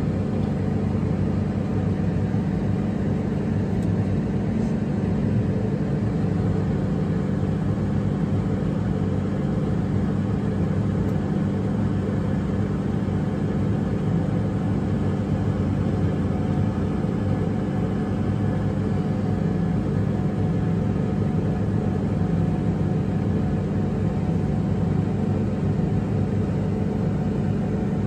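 Diesel engine of farm machinery running at a steady speed, a constant low drone that holds the same pitch throughout.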